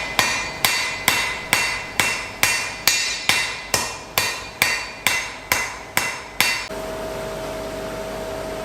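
Blacksmith's hammer striking iron on an anvil, about fifteen evenly spaced blows at a little over two a second, each with a brief metallic ring. The hammering stops about three-quarters of the way through, leaving a steady hum.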